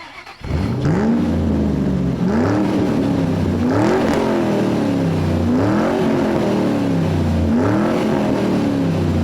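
Engine revving repeatedly, about five times, each rev rising and then falling in pitch, starting abruptly about half a second in.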